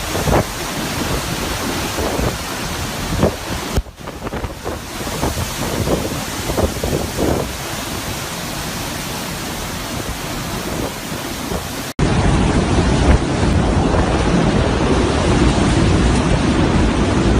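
Hurricane wind buffeting the microphone, with a continuous rush like surf and scattered brief knocks. About two-thirds of the way through it cuts abruptly to a louder, steadier storm roar.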